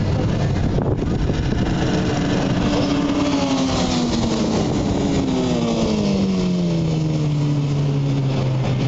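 Sport motorcycles running on a race track at speed. One bike's engine note falls steadily in pitch from about three to seven seconds in as it passes by.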